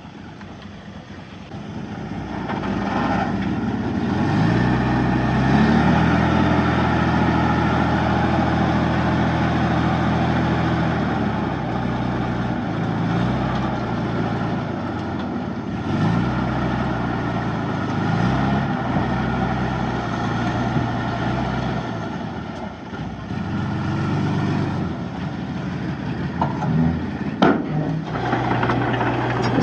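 Heavy diesel engine of earthmoving machinery working under load. It revs up about two seconds in, then its pitch rises and falls repeatedly as the load changes. A single sharp metallic clank comes near the end.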